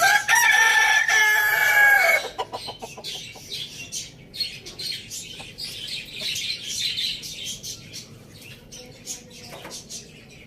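A rooster crowing once, a loud held call lasting about two seconds that drops in pitch as it ends. Many quick, high chirps from small birds follow.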